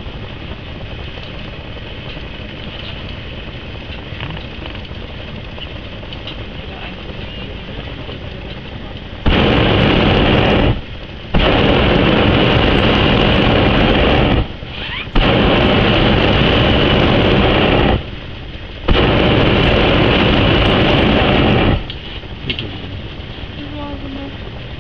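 Hot air balloon propane burner firing overhead in four loud blasts of steady roaring, each about two to three seconds long with short pauses between. Before them there is only a steady lower rushing.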